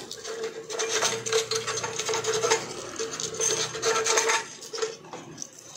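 Rapid scraping strokes of a small metal tool on the switch contacts under a rice cooker's heating plate, cleaning the dirt off them. The scraping runs in quick bursts and dies down about a second before the end.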